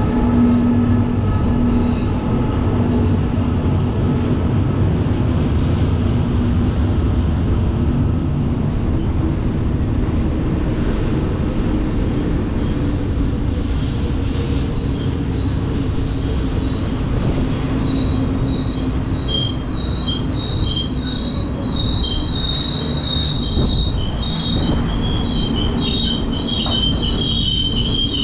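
Freight train of container flatcars rolling steadily past, with wheels rumbling on the rails. From about two-thirds of the way in, high-pitched metallic squeals from the wheels come and go repeatedly as the train slows into the station.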